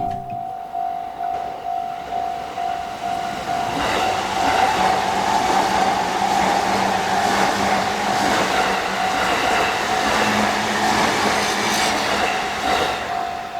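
Railway level-crossing warning bell ringing a quick repeating tone while an electric train passes over the crossing. The train's rumble and wheel noise swell up about four seconds in and die away near the end, with the bell going on throughout.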